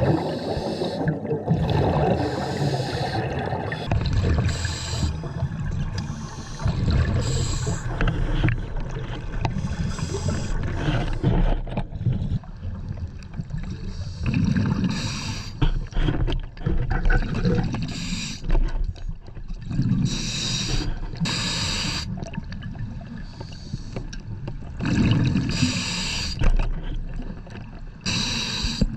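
Scuba diver breathing underwater through a regulator: a hiss on each inhale and a rumbling burst of exhaust bubbles on each exhale, repeating every few seconds.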